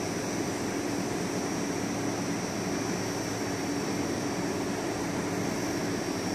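Frecciarossa 1000 high-speed electric train standing at the platform, its on-board equipment running with a steady hum and a high, steady whine.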